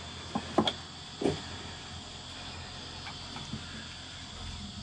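Three light knocks and clicks in the first second and a half as a removed Morse engine-control head and its cables are handled, over a steady faint high hum.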